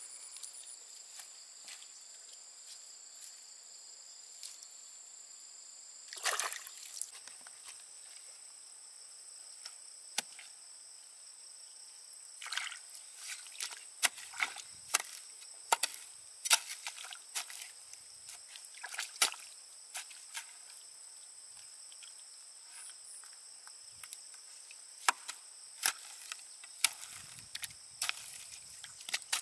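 Water and mud sloshing, with scattered short splashes and knocks, over a steady high-pitched drone of insects.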